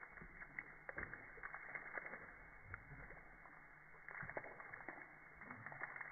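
Thin stream of water from a garden hose splashing into a puddle on concrete while a corgi laps and snaps at it: faint, irregular small wet splashes and clicks.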